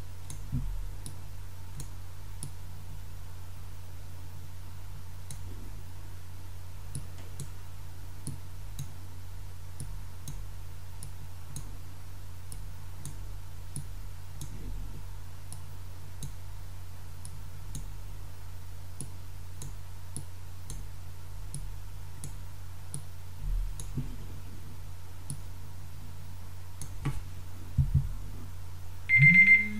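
Faint, irregular clicks of drawing on a digital whiteboard, a few a second at most, over a steady low electrical hum. Near the end an electronic timer starts beeping, marking the end of a timed minute.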